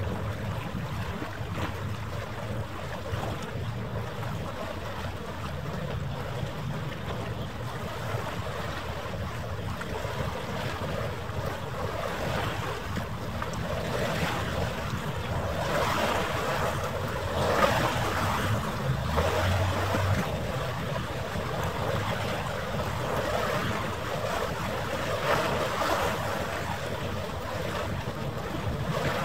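Steady rushing noise of wind and water, swelling louder for several seconds around the middle.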